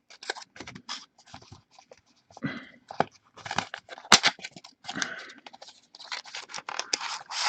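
Trading card packs and their cardboard box being handled: irregular wrapper crinkling, rustles and light clicks, with a sharper tap about four seconds in.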